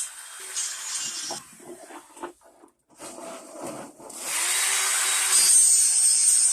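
Grinder working the steel of a snowblower wheel down to bare metal. It rasps in short uneven passes, goes almost silent briefly near the middle, then grinds steadily and loudly through the last two seconds.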